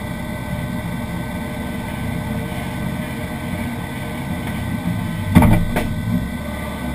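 Citroën Saxo VTS rally car's four-cylinder engine idling steadily, heard from inside the stripped cabin, with two sharp knocks in quick succession a little after five seconds in.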